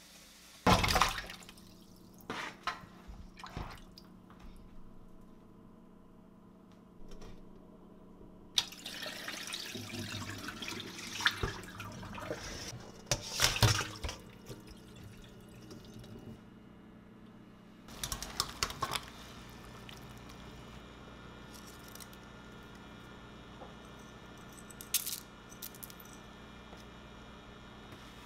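Tap water running into a kitchen sink as raw pork back ribs go into a stainless mesh strainer, with wet clatters as the ribs are handled. Before and after it there are a few short knocks of handling.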